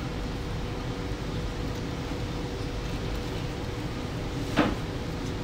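Steady hum of kitchen machinery with a faint constant tone, and one short knock about four and a half seconds in.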